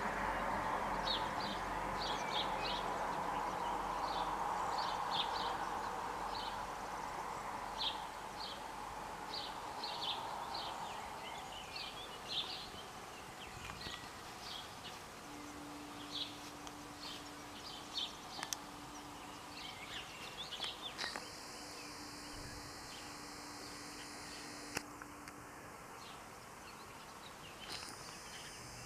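Garden ambience. Road noise from a vehicle fades away over the first ten seconds or so, while birds chirp in short high calls throughout. A steady low buzz runs for about ten seconds in the second half.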